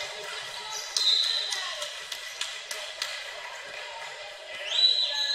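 Basketball dribbled on a hard gym floor, about three bounces a second, with voices in the gym behind. Two held high-pitched tones come through, a short one about a second in and a longer one that slides up near the end.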